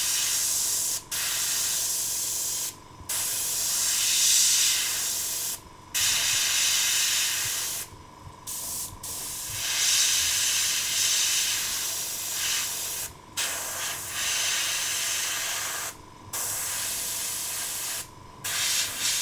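Dual-action airbrush hissing in a series of short sprays, about eight runs of one to four seconds with brief breaks between them, as blue paint is laid on close to a wooden fish lure in fine wiggly stripes.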